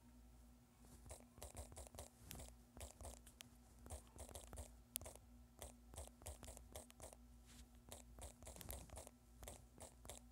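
Fingertips tapping on a phone's touchscreen keyboard while typing: a quick, irregular run of faint clicks over a faint steady hum.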